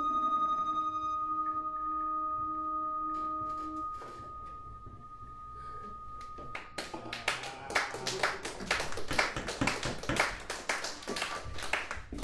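Sustained droning tones of a live improvised music piece end about four seconds in; after a short lull, an audience applauds.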